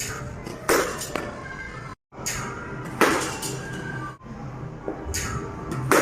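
Cricket ball striking a bat: three sharp, ringing knocks spaced a couple of seconds apart, over background music.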